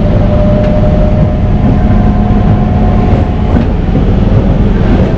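MEMU electric passenger train running: a loud, steady rumble with a faint steady whine that fades out about three seconds in.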